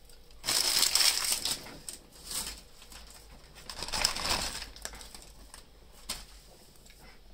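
A McDonald's paper takeaway bag rustling and crinkling as it is handled, in three bursts: a loud one starting about half a second in and lasting over a second, a short one a little later, and another around the middle.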